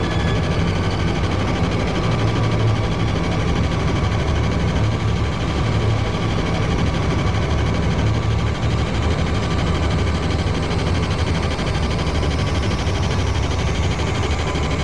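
Loud, bass-heavy music with a steady low drone, and a high sweep rising in pitch over the last few seconds.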